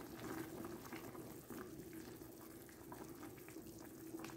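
Pot of sliced mini cucumbers simmering in water and stirred with a wooden spoon: faint bubbling and sloshing of liquid.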